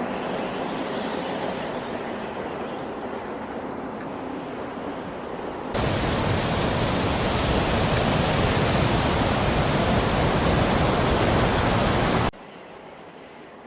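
Steady rushing noise of snowstorm wind. It jumps abruptly to a louder, fuller rush about six seconds in and drops off sharply near the end.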